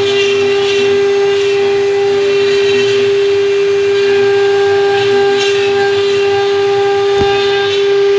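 CNC router spindle running with a steady high whine while carving pine wood. Rougher cutting noise from the bit comes and goes every second or so.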